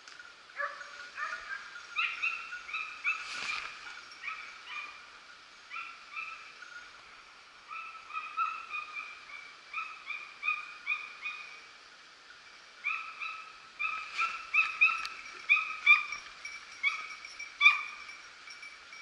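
Hunting hounds baying in the distance during a wild boar drive: many short, high yelps that overlap and come in irregular bursts, thickest in the last few seconds.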